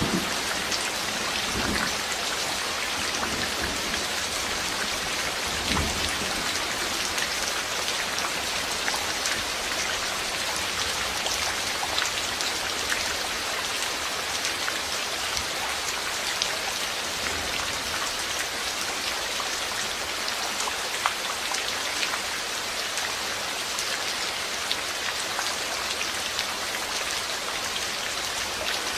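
Steady rain falling, with individual drops clicking on a surface. Low rolls of thunder rumble at about two and six seconds in.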